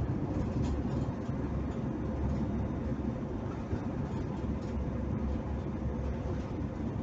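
Steady rumble of a car driving on an asphalt highway: tyre and engine noise heard from inside the cabin.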